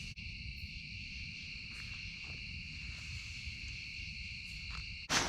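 A steady chorus of night insects, crickets or katydids, chirring in two high bands, with a few faint clicks. Near the end a sudden loud rustle breaks in and the insect sound stops.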